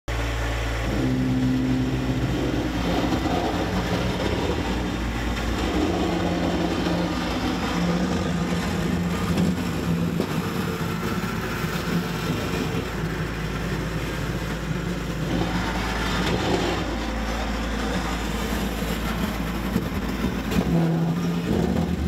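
Compact tractor engine running steadily, its speed stepping up about a second in.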